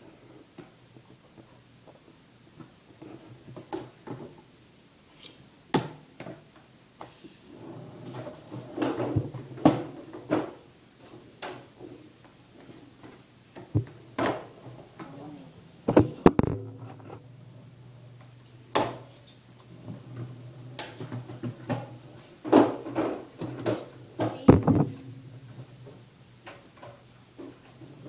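Skateboard hitting a concrete floor and a plywood board: sharp clacks of tail pops, board slaps and landings at uneven intervals, with rolling between them. A faint steady low hum comes in about halfway through.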